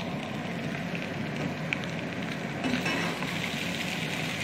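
Maggi noodles with scrambled egg sizzling in an oiled frying pan while being stirred with a wooden spoon. The sizzle grows a little louder and brighter about two-thirds of the way through.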